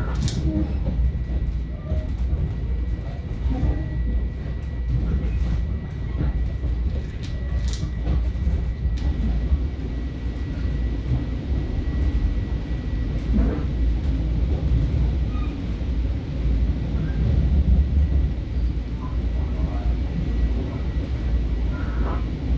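Onboard running noise of a Long Island Rail Road electric train: a steady low rumble with a thin steady high whine and irregular sharp clicks of the wheels crossing rail joints and switches.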